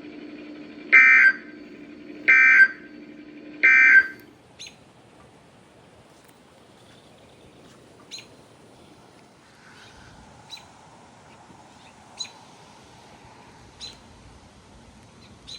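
NOAA Weather Radio Specific Area Message Encoding (SAME) end-of-message signal: three short bursts of shrill digital data tones, about a second and a half apart, over a low hum, marking the close of the tornado warning broadcast. Afterwards there is faint radio hiss with a few scattered clicks.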